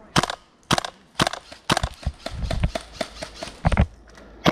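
Footsteps walking over dry twigs and brush, a crunching step about twice a second.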